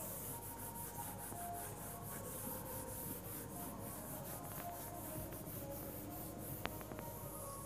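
Whiteboard being wiped clean of marker, faint rubbing in quick repeated strokes, several a second.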